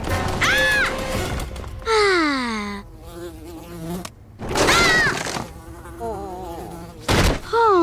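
Cartoon housefly buzzing sound effect, swooping up and down in pitch in several passes, with one long falling dive about two seconds in. A short thud a little after seven seconds.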